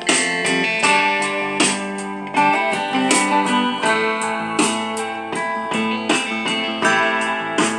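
A plucked-guitar tune played through the small built-in speaker of a Bluetooth karaoke microphone: the music it plays on its own once switched on.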